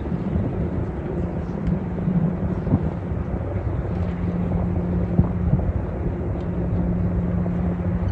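Large cruise ship's machinery heard from shore as it passes: a steady low drone with a held hum over a rumble.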